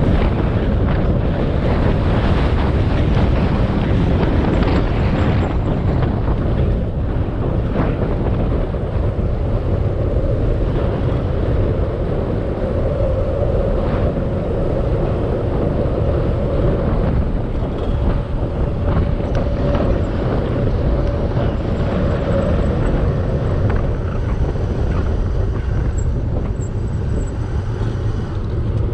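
Wind buffeting the camera microphone on a moving bicycle: a loud, steady rumbling rush with no speech. A faint steady hum comes through in the middle part.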